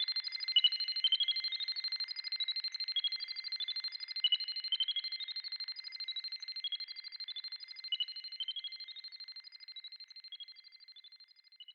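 Electronic satellite signal sound effect: a steady high tone under a rapid stream of short beeps, several a second, that hop between pitches. It fades out near the end.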